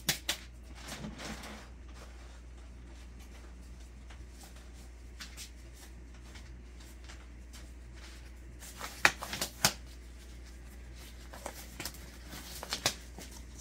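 Quiet low hum with a few short, sharp clicks and light rustling, clustered about nine seconds in and again near the end.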